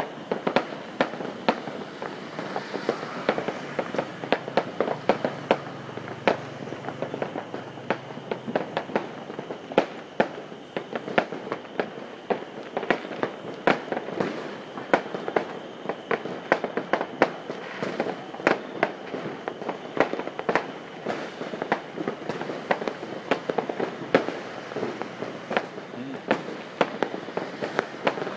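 Fireworks and firecrackers going off nonstop at many distances: a dense, irregular string of sharp bangs and pops, several a second, over a constant crackling background of more distant explosions.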